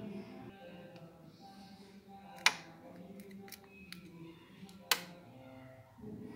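Two sharp clicks about two and a half seconds apart, with a few faint ticks between them, as a hand handles a Samsung Galaxy S4 smartphone on a tiled floor. Faint music plays underneath.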